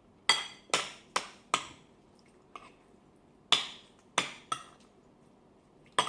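Spoon clinking against a dish while eating: a run of four sharp, ringing clinks in the first second and a half, then three more after about three and a half seconds and another near the end.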